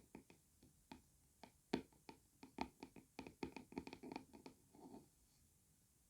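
Fingernails tapping and lightly scratching on an old hardback book, quick irregular taps likened to drizzle on a windowsill. The taps stop about five seconds in.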